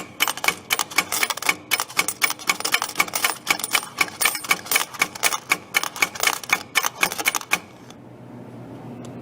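Vending machine clicking fast and evenly, about five sharp clicks a second, then stopping abruptly about seven and a half seconds in.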